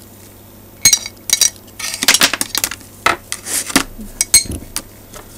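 Loose steel ball bearings from an antenna rotator's bearing race being prised out with a metal rod: sharp metallic clinks and rattles as the balls knock against each other and the metal housing. A few single clinks come about a second in, then a busier run of clinking from about two seconds in.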